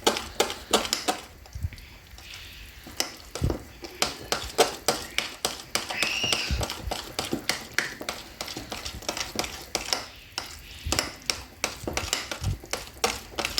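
Kitchen utensil clicking and scraping against a mixing bowl while stirring basbousa batter, a quick, uneven run of small clicks.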